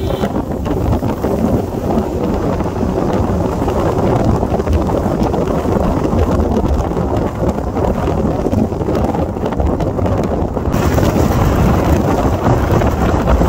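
Wind rushing hard over the microphone of a camera riding on a moving motorcycle, with engine and road noise beneath it. About eleven seconds in the rush suddenly turns brighter and hissier.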